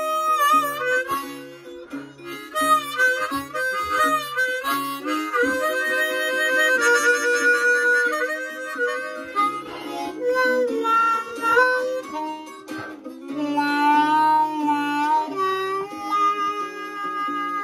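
Hohner Koch harmonica playing a blues solo, with bent, wavering notes and quick runs, over a steady low rhythmic pulse.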